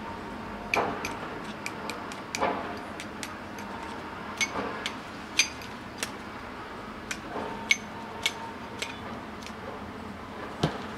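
Handling noise from a nylon CAT tactical tourniquet: irregular clicks and taps from its aluminum windlass rod and plastic buckle, with the nylon strap rustling and sliding now and then.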